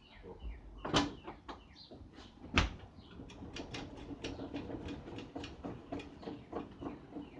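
Wood being handled during carpentry: two sharp knocks about a second in and a second and a half later, then a run of light taps and clicks over a faint steady hum.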